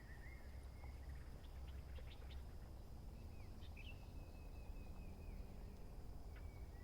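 Faint outdoor ambience with birds calling: short chirps near the start and a wavering, warbling call about four seconds in, over a low steady rumble.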